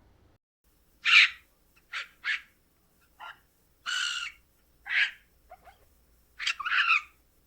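A bird giving a series of short, harsh, screechy calls, about nine of them at uneven intervals, starting about a second in.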